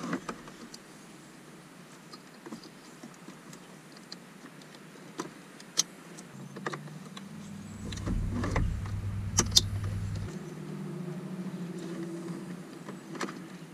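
Plastic interior trim clips being snapped back into a car's centre console: a few scattered sharp clicks. About halfway through, a low steady hum sets in and grows deeper for a couple of seconds before easing back.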